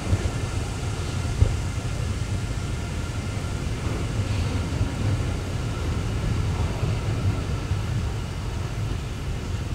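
Container flat wagons of a freight train rolling past close by: a steady rumble of steel wheels on the rails, with one sharp knock about a second and a half in.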